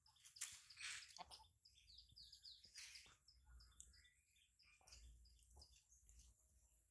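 Faint chirping of small birds, a quick run of short calls, mixed with a few soft rustles or taps.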